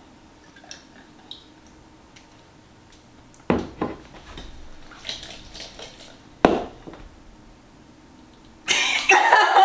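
A glass olive-oil bottle is set down on the counter with a sharp knock about three and a half seconds in, and a second knock follows about three seconds later. Near the end, laughing starts.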